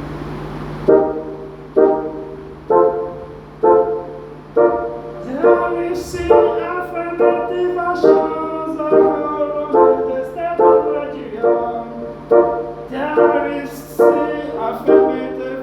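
Instrumental soundtrack music: a chord struck in a steady pulse about once a second, starting about a second in, with higher notes filling in over the pulse from about five seconds in.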